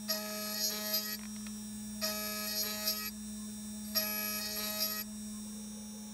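A milling spindle's motor hums steadily while a small end mill cuts the metal workpiece. A high, pitched cutting whine comes in three times, each about a second long, about every two seconds, with small clicks inside each burst.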